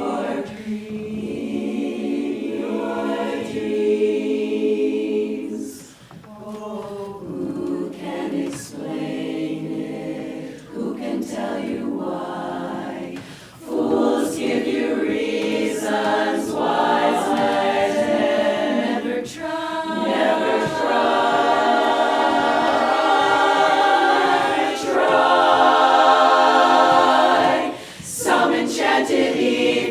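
Women's barbershop chorus singing a cappella in close harmony, phrase by phrase, with short breaks between phrases.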